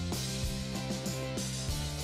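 Background music with a steady drum beat and held instrument notes.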